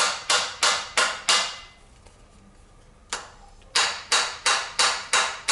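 Screwdriver rapping on the metal body of a Suzuki TS185ER carburetor: sharp, ringing taps about three a second, in two runs with a pause of about a second and a half between them. The taps are meant to free a float chamber that is stuck and won't open.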